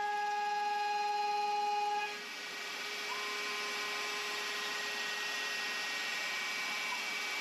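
Mafell FM 1000 milling motor on a CNC router, first cutting with a steady whine, then about two seconds in the cut ends and the motor runs on at idle with a steady hissing rush.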